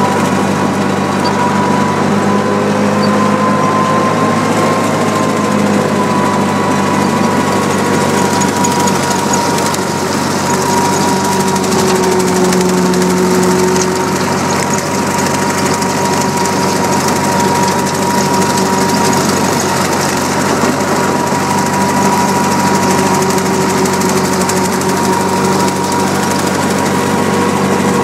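Ford 2N tractor's four-cylinder flathead engine running steadily under load while its PTO-driven 6-foot Rhino brush hog cuts tall grass, with a steady high whine over the engine note.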